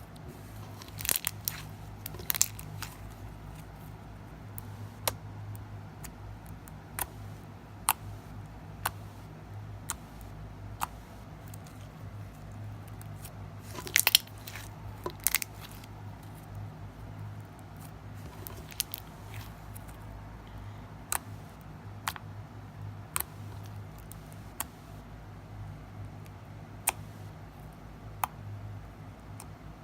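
Homemade slime being squeezed and kneaded by hand, giving irregular sharp pops and clicks every second or two, with a brief louder cluster about halfway through. The slime is glossy and a little sticky. A steady low hum runs underneath.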